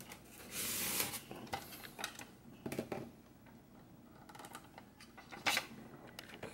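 Plastic action figure and a tiny plastic accessory being handled: a brief rustle, then a few light plastic clicks as the accessory is pressed into the figure's hand.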